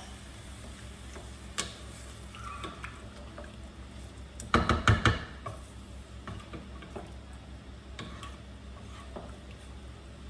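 Wooden spatula stirring rice and liquid in a pot, with light scrapes and clicks and a quick run of louder knocks against the pot about halfway through, over a steady low hum.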